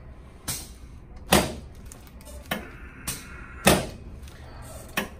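A series of about seven sharp knocks or clunks, irregularly spaced. The two loudest come about a second and a half in and two seconds after that, each with a short ringing tail.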